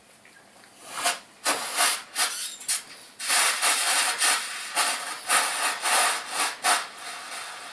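Abrasive strokes worked against a gold ring by hand, a run of short rasping scrapes at roughly two to three a second, starting about a second in.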